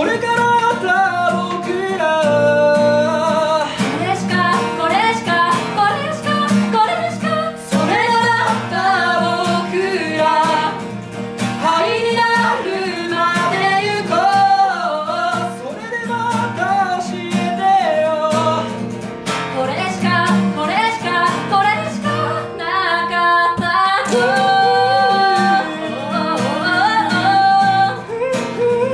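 Live acoustic guitar with singing: a song played on one acoustic guitar while a voice sings the melody over it.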